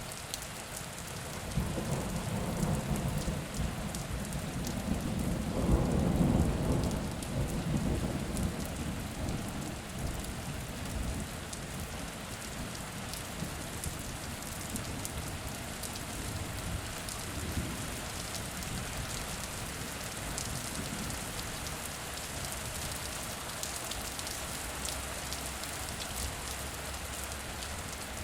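Steady rain falling, with a long roll of thunder that builds a couple of seconds in, is loudest about six seconds in and rumbles away over the next few seconds. Fainter low rumbles follow later.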